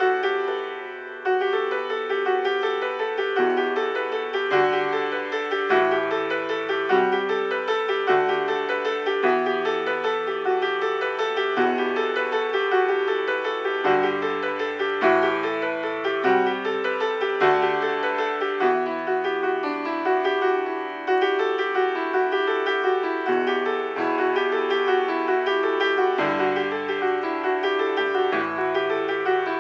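Improvised keyboard music in a piano sound: a steady run of repeated mid-range notes over a bass line that changes every second or two.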